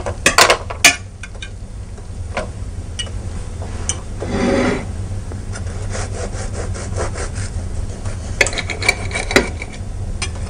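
A knife sawing through a crisp, grill-pressed panini crust, a steady rasping scrape. A few sharp clicks come near the start and again near the end.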